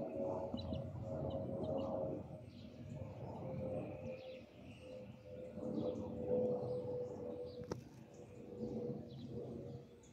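Airbus A320-214 airliner passing overhead on approach: a low jet-engine rumble with a steady whine that drifts slightly lower in pitch, then fades near the end. Small birds chirp throughout, and there is one sharp click about three-quarters of the way through.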